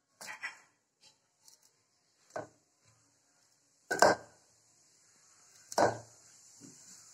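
Four separate thumps as a small child's hand pounds and kneads chapati dough in a large stainless steel plate. The loudest comes about four seconds in.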